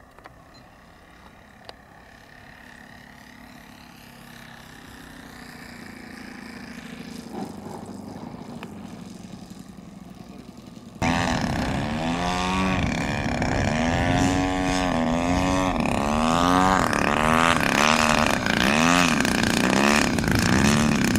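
Radio-controlled model airplanes landing. A faint motor sound slowly grows for the first half. About halfway through it cuts to the much louder engine of a green MXS-R aerobatic model flying low to land, its pitch wavering up and down.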